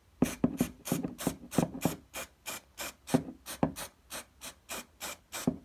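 Aerosol can of floor-tack spray adhesive giving short, quick bursts of spray, about three a second, in a steady run of some seventeen puffs.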